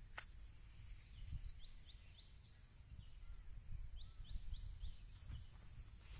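Field ambience: a steady high insect drone, with a bird's short rising chirps in two quick series and a low rumble on the microphone.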